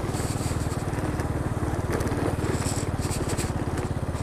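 Small single-cylinder four-stroke engine of a Honda Pop 110i motorcycle running with a steady low putter. A few brief scratchy rustles come in about two and a half to three and a half seconds in.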